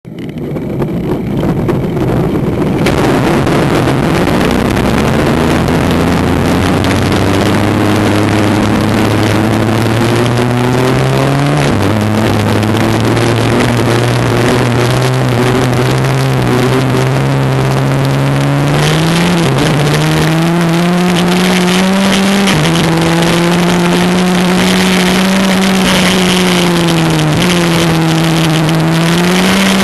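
Onboard sound of a 125cc two-stroke Maxter ICC shifter kart engine at racing speed. The note climbs steadily and drops back sharply several times, then climbs again.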